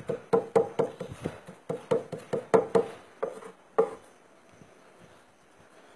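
Small hammer pounding frozen animal fat on a marble slab, crushing it for oar grease (sivo): a quick run of sharp knocks, about three or four a second, that stops a little before four seconds in.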